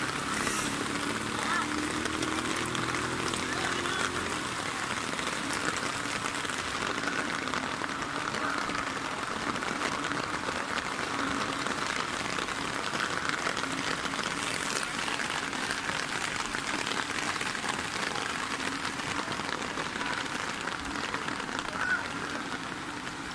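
Steady rain falling continuously, an even hiss.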